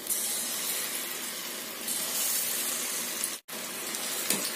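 Hot oil sizzling as batter-coated baby corn deep-fries, a steady hiss of bubbling oil that swells louder about two seconds in and breaks off for an instant just past three seconds.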